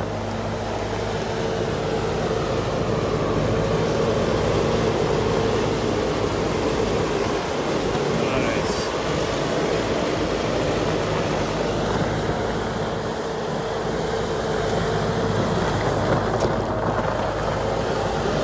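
Bobcat S770 skid-steer loader's diesel engine running steadily as the machine drives and turns on gravel, a steady hum with a steady whine over it.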